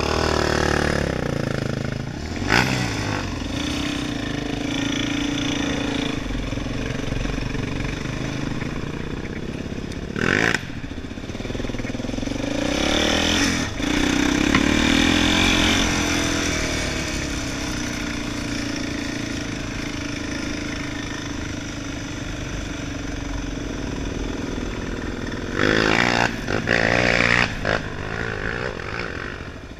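Quad bike engine running on a dirt track, its pitch rising and falling with the throttle, with several short sharp revs.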